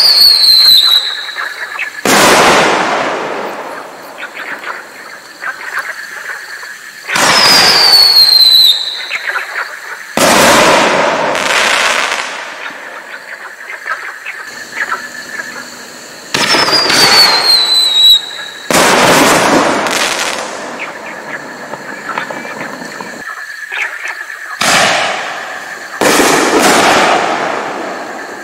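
Consumer artillery shells fired one after another from a mortar tube. Each cycle has a sudden loud report with a falling whistle, then a couple of seconds later a loud bang that fades away with crackle over about two seconds. The cycle repeats several times.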